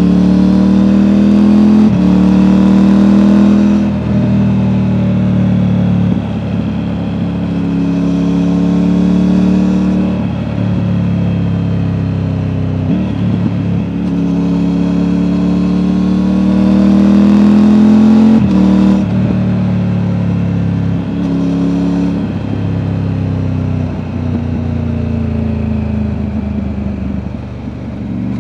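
Triumph Tiger 900's three-cylinder engine through an Akrapovic exhaust, heard from the rider's backpack while riding and accelerating through the gears. The pitch climbs steadily and drops sharply at each upshift, about half a dozen times.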